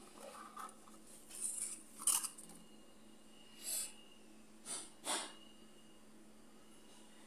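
Cardboard box and foam packing being handled as the box is opened: about five short rustles and scrapes in the first five seconds, the sharpest about two seconds in.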